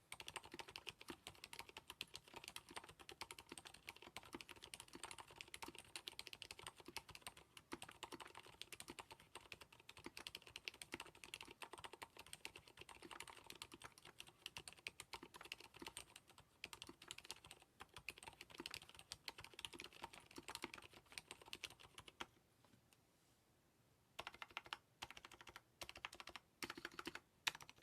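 Steady, fast typing on a mechanical keyboard fitted with lubed Cherry MX Silent Red (35 g) linear silent switches on an aluminum plate with silicone dampening: soft, muted keystrokes. The typing stops about three-quarters of the way through, and a few short bursts of keystrokes follow near the end.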